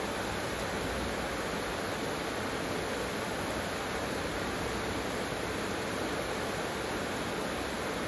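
Heavy tropical downpour: dense rain falling in a steady hiss.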